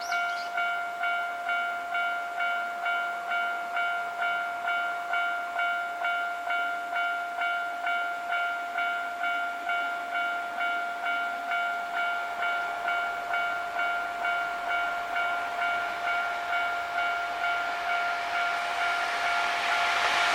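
Japanese railway level-crossing warning bell ringing in a steady, evenly repeated ding, about one and a half strikes a second. Near the end the noise of an approaching Hankyu 5300 series train rises underneath it.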